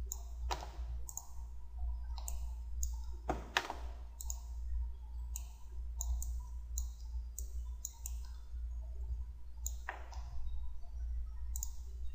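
Computer mouse clicking irregularly, some fifteen to twenty sharp clicks with a few louder ones, over a steady low hum.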